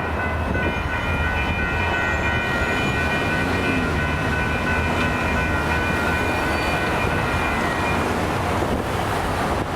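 Grade-crossing signal bells ringing as a steady cluster of high tones over the low rumble of a freight train, the bells cutting off about eight seconds in as the crossing signals deactivate.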